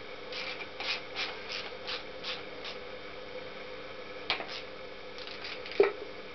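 Screwdriver working a hose clamp on a Honda CX500 engine's coolant hose: a quick run of about eight soft rasping strokes, then a few clicks with one sharp click near the end. A steady low hum runs underneath.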